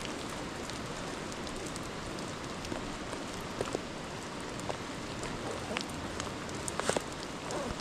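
Steady rain falling on wet ground and grass, an even hiss with scattered sharper drip ticks over it.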